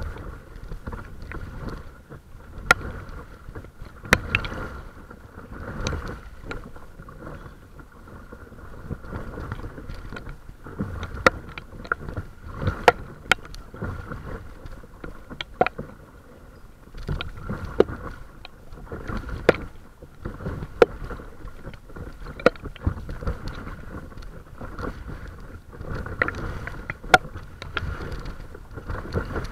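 Water splashing and lapping against the hull of a paddled boat under way, swelling and fading every second or two, with wind noise on the microphone. Sharp clicks and knocks come every second or two.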